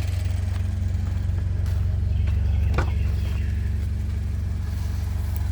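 Subaru BRZ flat-four engine idling steadily at operating temperature. The owner says the rod knock has been quieted, not cured, by heavy-duty oil stabilizer in the oil.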